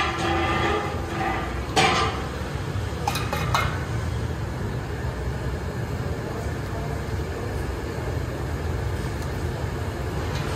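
Steady low rumble of passing heavy traffic. A held horn tone fades out about a second in, and a few light clicks come around two and three seconds in.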